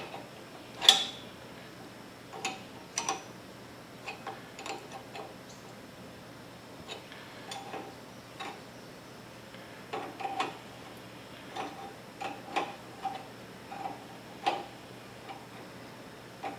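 Hand tools on hydraulic hose fittings: scattered light metallic clicks and taps as an extension fitting is fitted to a hose that is a few inches too short, with a faint steady hum underneath.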